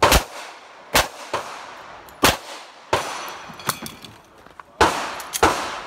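Handgun shots fired in an uneven string during an IDPA stage, about ten in all, several in quick pairs, each followed by a short echoing tail.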